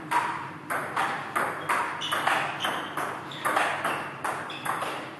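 Table tennis rally: the ball clicking alternately off the players' bats and the Donic table, a sharp knock about every third of a second, keeping up without a break.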